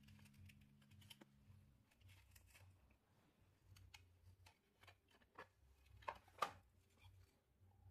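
Faint clicks and scrapes of a laptop charger's circuit board being worked out of its plastic case, with two sharper clicks about six seconds in.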